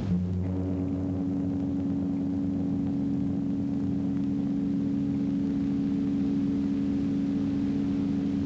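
Silent-film accompaniment music holding a low sustained chord with no melody. A new chord begins at the start and an upper note joins about half a second in.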